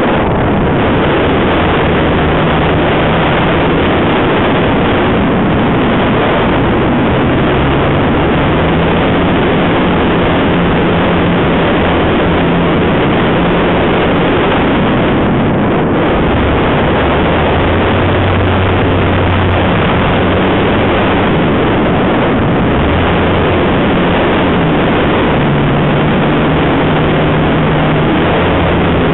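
Motor and propeller of an RC Tiger Moth model biplane in flight, heard with heavy wind rush over the onboard camera's microphone: a loud, steady rushing noise with low motor tones that shift up and down in pitch as the throttle changes.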